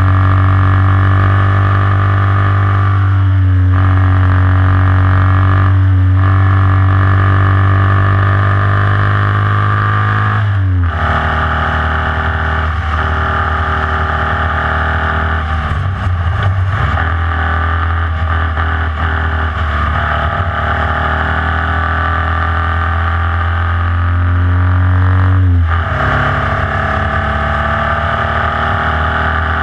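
Formula Vee racing car's air-cooled Volkswagen flat-four engine at full throttle, heard onboard. It holds a high, steady note, drops sharply in pitch about ten seconds in, climbs steadily, then drops sharply again near the end, as with upshifts.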